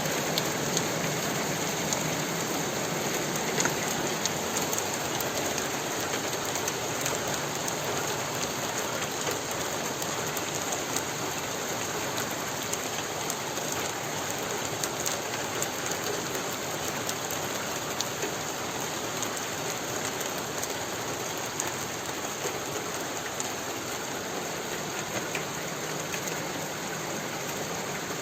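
Heavy rain falling steadily, a dense even patter with many small sharp ticks of impacts throughout.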